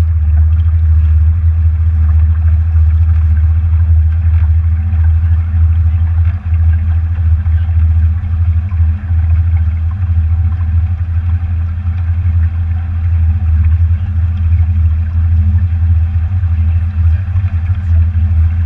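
Motorboat underway: a steady, loud low rumble of engine and wind over the bow, with water rushing past the hull.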